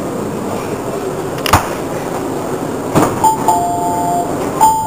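Metro train door chime, a two-note high-then-low ding that starts about three seconds in and repeats every second and a half or so as the doors open, following two sharp clicks. Under it runs the steady noise of the train standing at the platform.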